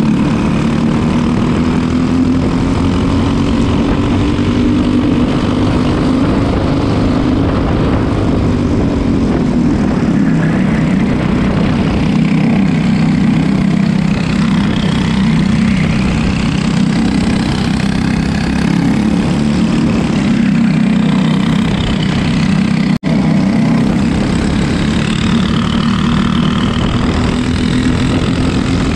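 Racing go-kart engines heard on board at close range, their pitch rising and falling as the karts accelerate and back off through the corners. The sound cuts out for an instant about 23 seconds in.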